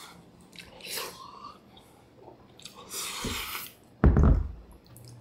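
A person eating ramen noodles dipped in cheese sauce: a short slurp about a second in and a longer noisy slurp around three seconds, then a sudden loud, bass-heavy burst at about four seconds.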